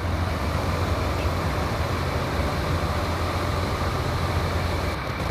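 Fire engine's diesel running steadily at pumping speed, a low drone, under a steady rush of high-volume water flow.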